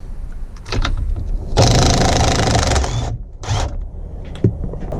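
A power tool's motor runs in a burst of about a second and a half, then a short second burst, spinning off the steering wheel retaining nut.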